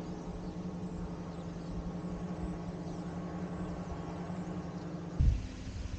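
Small engine of a powered hang glider droning steadily overhead. It cuts off about five seconds in, and a low rumble follows.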